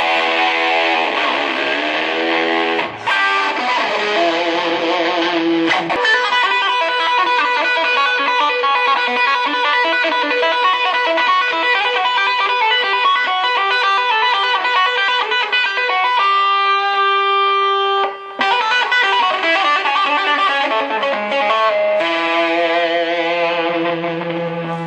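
Electric guitar played through an amplifier: a lead line with gliding pitch bends in the first few seconds, then fast runs of notes, a held ringing note about two-thirds of the way through, and more fast playing after a brief break.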